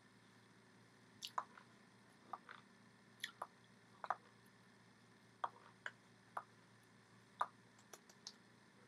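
Faint, irregular wet mouth smacks and tongue clicks, about a dozen short ones, from a person signing in sign language, over a low steady hiss.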